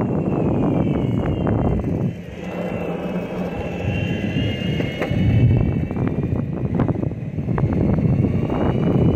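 Skateboard wheels rolling over smooth asphalt, a steady rumble with scattered sharp ticks and a thin high whine that slowly rises and falls in pitch, with wind buffeting the microphone.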